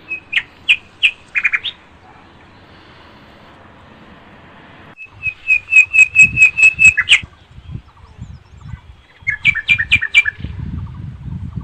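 A bird calling in quick runs of short, sharp chirps on one pitch: a brief run at the start, a longer run of about nine notes midway, and another run near the end. A low wind or handling rumble on the microphone runs through the second half.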